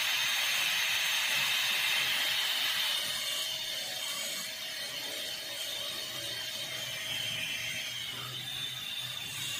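Dental high-speed handpiece with an inverted cone bur cutting a model molar tooth: a steady high-pitched whine over a grinding hiss, easing slightly about three seconds in. It is cutting away the marginal ridge to open the contact for a class 2 cavity box.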